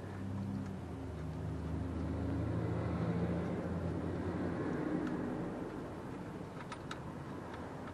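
A low engine hum from a passing vehicle, growing louder and then fading away over several seconds, with a few faint metallic clicks near the end.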